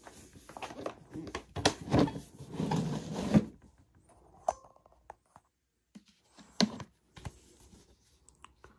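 Plastic Igloo Playmate cooler being opened and its contents handled: a cluster of knocks and thunks with rustling of cables, then a few separate sharp clicks and taps.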